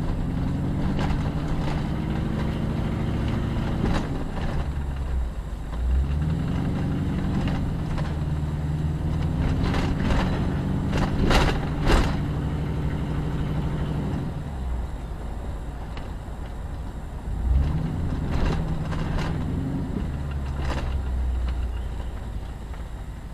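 A car's engine and road noise heard from inside the cabin. The engine note rises three times as the car pulls away and then falls as it eases off. Two sharp knocks come about halfway through.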